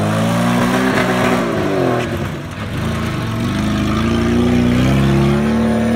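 Fiat 124 Spider's four-cylinder engine revving hard as the car is driven off-road on a dirt track. The pitch climbs, drops about two seconds in, then climbs again and holds high near the end.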